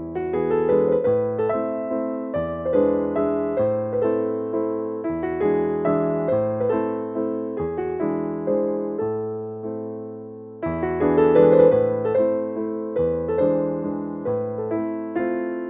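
Background music: a gentle keyboard piece on piano or electric piano, with notes struck and fading over changing chords. The level dips briefly just before the tenth second, then picks up again.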